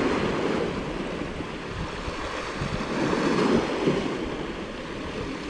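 Sea waves washing against shoreline rocks, with wind buffeting the microphone; the wash swells about three seconds in and then eases.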